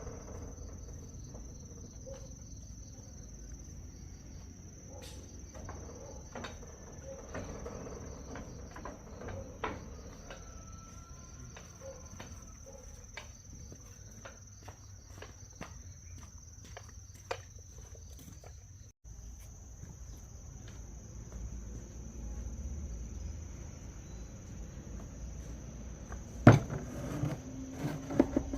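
Steady high-pitched insect chirring, crickets or similar, with scattered light clicks and knocks and a couple of sharper knocks near the end.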